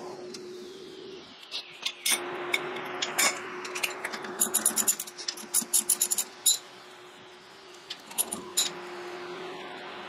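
A socket ratchet clicking in short runs as the brake caliper's mounting bolts are backed out, the clicks thickest about halfway through. Under it runs a faint steady hum.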